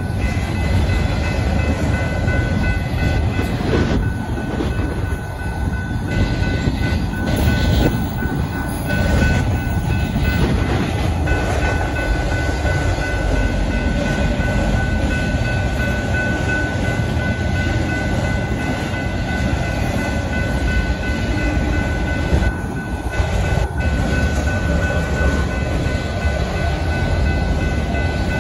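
BNSF freight train of autorack cars rolling past at a grade crossing: a steady rumble and clatter of wheels on the rails, with a steady high ringing tone over it.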